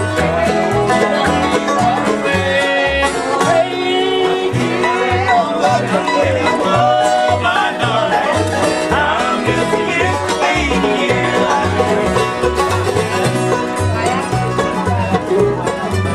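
Acoustic bluegrass band playing a tune: banjos, acoustic guitars and mandolin over an upright bass keeping a steady beat. A voice sings through the middle.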